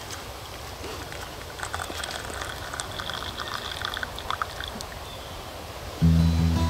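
Coffee poured from a moka pot into a collapsible plastic cup: a thin, splashing trickle for about three seconds. Near the end, guitar music starts.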